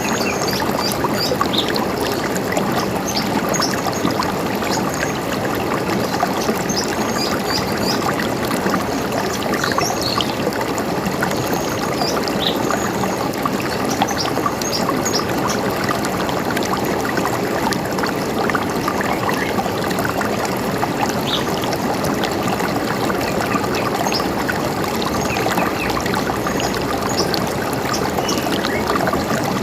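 River water running steadily, with short, high bird chirps scattered over it, more often in the first half.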